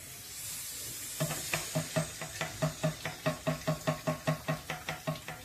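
Dough frying in hot oil in a pan, a steady sizzle. About a second in, a fast, even beat of about four to five pulses a second starts up over it and is the loudest sound.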